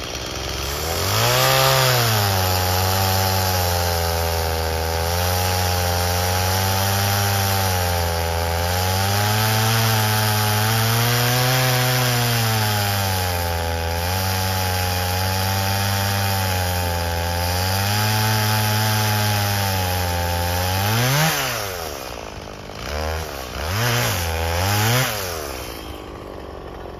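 Two-stroke chainsaw cutting through an ironbark log: it revs up about a second in and runs under load for about twenty seconds, its engine pitch sagging and recovering as the chain bites. Near the end the load comes off, followed by three short blips of the throttle before the sound falls away.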